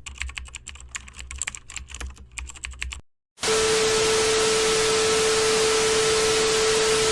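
Rapid irregular clicking over a low hum for about three seconds. After a short gap, a loud steady hiss of static with a steady tone in it begins about three and a half seconds in.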